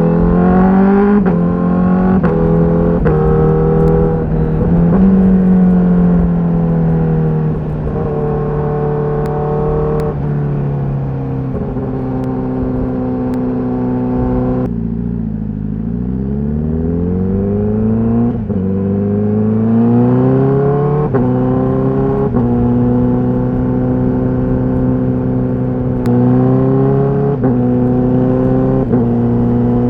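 Honda CBR1000RR-R SP's inline-four engine through its stock exhaust, accelerating through the gears with quick-shifter upshifts, the pitch climbing and dropping abruptly at each shift. About halfway through the throttle closes and the engine note falls away. It then climbs again through another run of quick upshifts.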